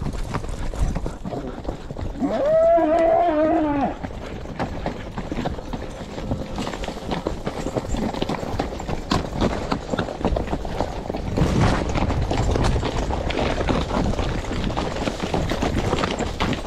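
A cow bawls once, a wavering call just under two seconds long, about two seconds in. Underneath runs the crackle and rustle of a horse moving through dry brush, with its hoofbeats.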